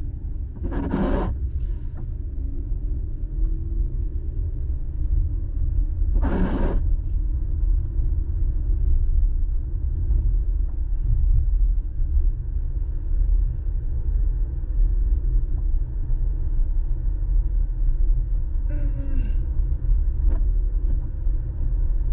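Low, steady road and engine rumble inside a moving car's cabin on wet pavement, with a few short swishes, about a second in, at about six and a half seconds and near the end.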